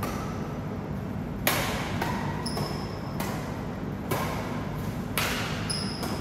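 Badminton rally: rackets striking the shuttlecock, about five sharp hits roughly a second apart, each with a short echo. Shoes give brief high squeaks on the court floor between hits.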